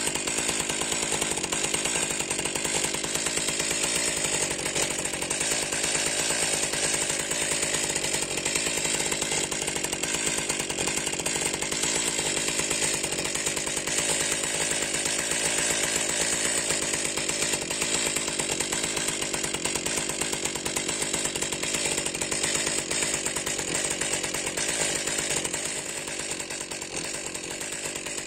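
Stihl MS 261 chainsaw's 50 cc two-stroke engine idling steadily, with no revving. It gets a little quieter near the end.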